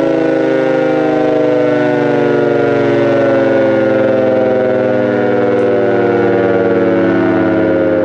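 Gents 4 hp WW2 air raid siren winding down after a quick burst of power: one loud, steady siren tone falling slowly in pitch as the rotor coasts.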